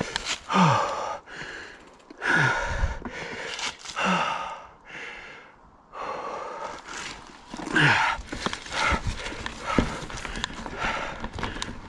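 Mountain biker breathing hard, with a deep, voiced exhale falling in pitch about every two seconds, over the clatter and knocking of an Ibis Ripmo mountain bike riding over rocks.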